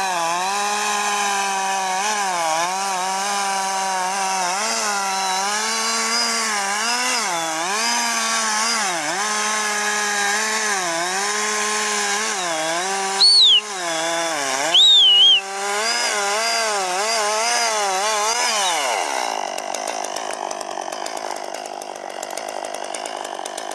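Two-stroke chainsaw running at high revs as it cuts into a tree, its pitch dipping again and again as the chain bites under load, then winding down and stopping about three-quarters of the way in. Two short, loud, high-pitched sounds cut in around the middle.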